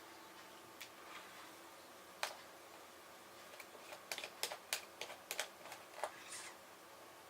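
Faint, scattered clicks and taps of small metal and plastic parts being handled: a Phillips screwdriver and the tiny screws of a laptop's LCD panel being removed. A couple of single clicks come first, then a quick run of clicks in the second half.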